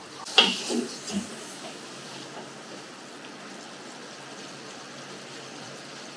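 A wooden spatula knocks against a metal cooking pot a few times, the loudest a sharp knock about half a second in. Then chicken pieces sizzle steadily as they fry in masala in the pot.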